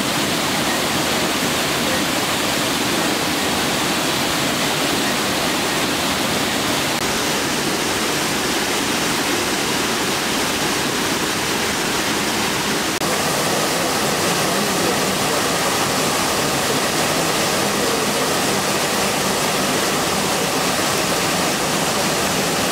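Loud, steady rush of river water pouring over falls, an unbroken wash of noise. Its tone shifts abruptly but slightly about thirteen seconds in.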